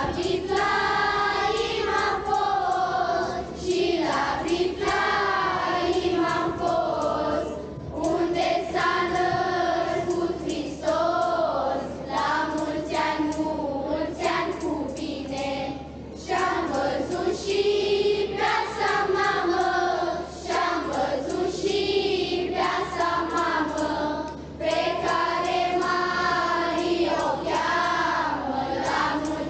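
Children's choir singing a Romanian Christmas carol (colindă), in phrases about four seconds long with short breaths between them.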